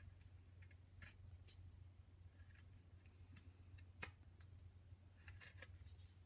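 Faint, short scraping clicks of a small carving knife slicing chips off a hand-held wooden figure: a handful of separate cuts, the sharpest about four seconds in and a quick cluster near the end, over a low steady hum.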